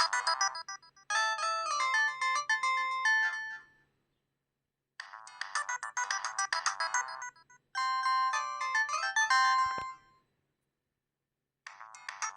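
Polyphonic ringtone melody playing from an LG KG800 Chocolate phone's speaker. A fast run of notes and a slower phrase of held notes alternate, broken by pauses of about a second at about 4 s and 10 s in.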